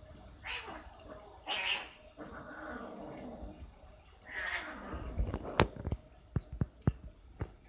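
Two cats scuffling, with short hissy cries and a lower drawn-out growl, then a run of sharp knocks in the last couple of seconds.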